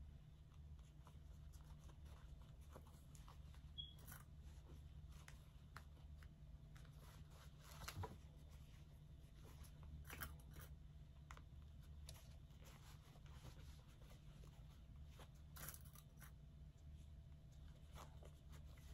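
Near silence: a low steady room hum with a few faint rustles and clicks of satin fabric being folded and pinned by hand.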